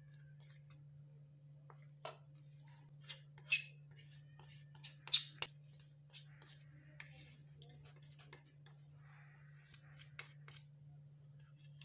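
Scattered clicks and scrapes of a plate against a red plastic mixing bowl as icing sugar is scraped and knocked off into it, with two louder knocks about one and a half seconds apart. A faint steady low hum runs underneath.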